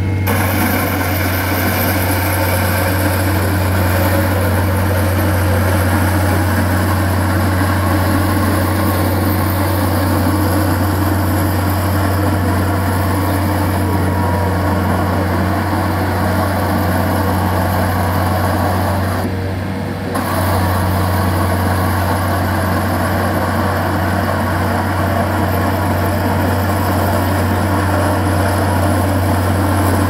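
Mustang 2054 skid steer's diesel engine running steadily under load, with the hiss and grind of its hydraulic coatings-removal head working across wet concrete. The high hiss drops out for about a second about two-thirds of the way through.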